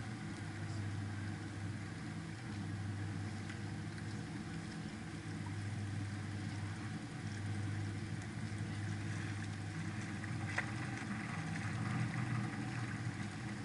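Canal tour boat's engine running with a steady low hum, heard from the bow, with a single faint click about ten and a half seconds in.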